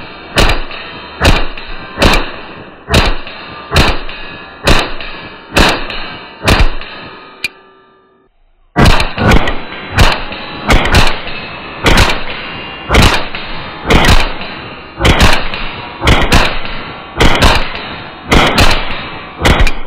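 .22 LR semi-automatic pistol firing, each shot sharp and loud and echoing briefly. The shots come about once a second, stop for about a second around eight seconds in, then resume as a faster string of about two a second.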